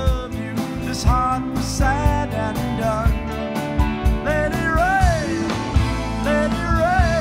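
Live blues-rock band playing loud: electric guitars, bass, drums and keyboards, with a steady drum beat and a melody line that bends up and down in pitch.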